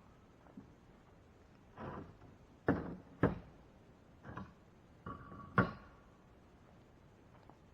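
A handful of scattered knocks and thuds, three of them sharper than the rest, with a brief faint tone under one of them.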